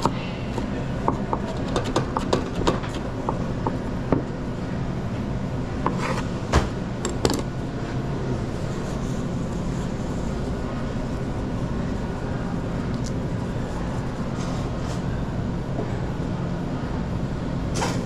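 Steady low hum of pizza-kitchen machinery, with scattered knocks and taps of utensils and equipment through the first several seconds, two of them louder about six and seven seconds in.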